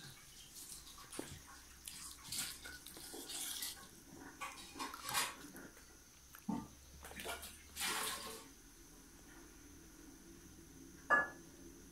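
A small child eating from a steel plate: a spoon scraping and knocking against the plate, with wet smacking and chewing noises. A brief sharp high sound stands out about eleven seconds in.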